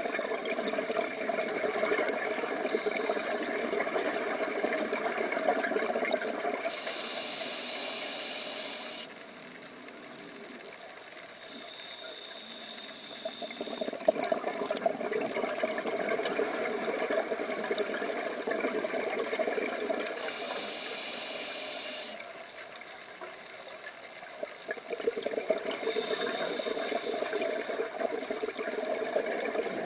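Scuba regulator breathing underwater: long stretches of bubbling exhaust, each broken by a short, sharp hiss of the diver breathing in, about 7 and 20 seconds in. The breaths repeat about every 13 to 14 seconds.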